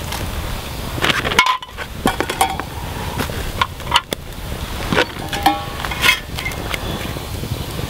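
Irregular clinks and knocks of metal utensils against stainless steel cookware, a few of them ringing briefly.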